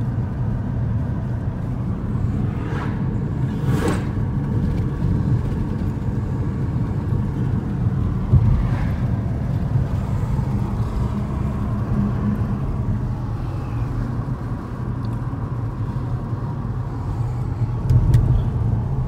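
Road and engine noise of a moving car heard from inside the cabin: a steady low rumble, with a couple of brief rushing sounds, one about three to four seconds in and one near nine seconds.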